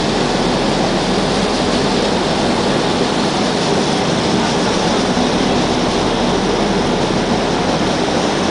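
Steady loud rushing noise on board a ship at sea, with a low, even machinery hum beneath it and no separate events.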